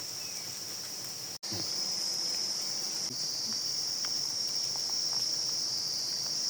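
Steady high-pitched insect chorus, a continuous buzzing drone, cutting out for an instant about a second and a half in and coming back a little louder.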